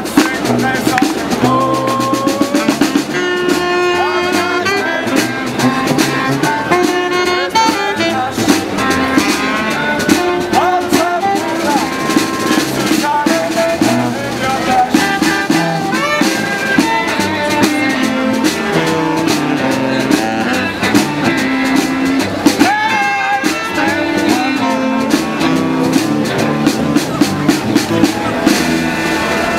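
Street band playing a lively, funky tune, with a melody over a steady drum beat.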